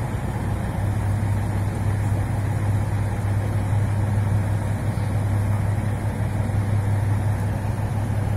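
Engines of truck-mounted cranes running steadily under load, a constant low hum with no change in pitch.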